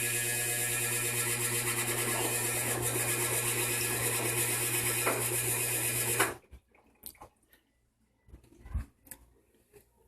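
Electrolux LSE09 washer-dryer making a loud, steady hum with a high hiss as it starts filling with water, a noise the owner calls unbearable and counts among its factory defects. It cuts off suddenly about six seconds in, leaving a few faint knocks.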